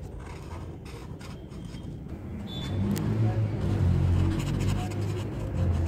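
Broad-tip marker scraping across paper in colouring strokes, over a low rumble that grows louder about halfway through.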